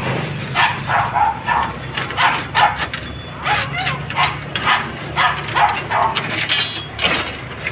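A dog barking repeatedly, in short barks often two or three close together, over a steady low hum.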